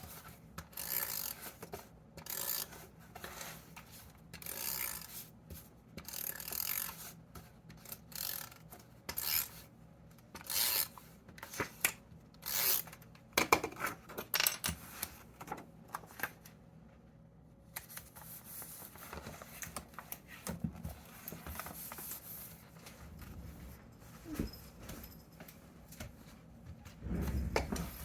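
Scrapbook paper being handled: a run of short rustling, scraping strokes for about the first sixteen seconds, then a softer, steadier rubbing with a low thump near the end.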